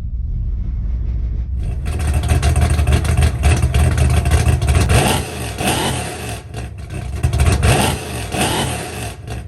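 YCF pit bike's single-cylinder engine running loud, revving up and down a few times in the second half.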